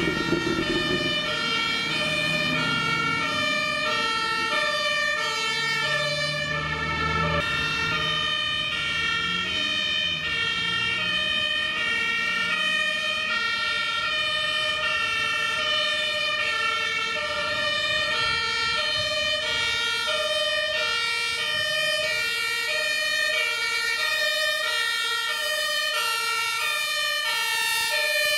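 German fire engines' two-tone sirens (Martinshorn) sounding their alternating high-low notes, more than one horn out of step with the others. Truck engines run low underneath during the first several seconds.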